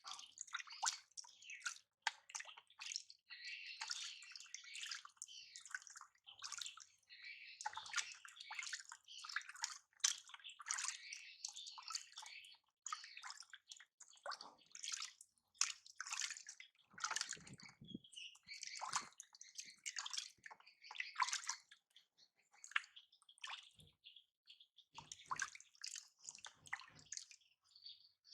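Water splashing, pouring and dripping in short irregular bursts while a baby is washed, with a few dull knocks.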